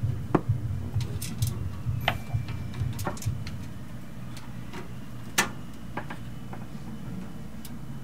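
Screwdriver turning the screw that fastens a graphics card's metal bracket to a computer case: scattered sharp metallic clicks and ticks, most in the first half, with one louder click past the middle, over a steady low hum.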